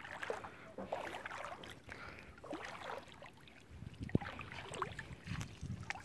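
Faint swishing and splashing of shallow river water as a cast net is hauled in by hand through it, with a brief knock about four seconds in.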